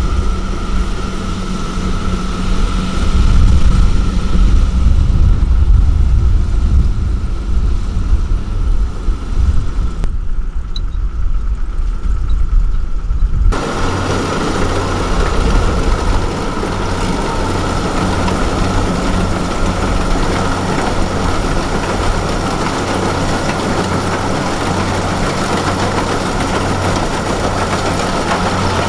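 Diesel engine of Kubota rice-harvesting machinery running steadily, with a constant whine over its hum. About halfway through the sound changes abruptly to a busier, rattling mix.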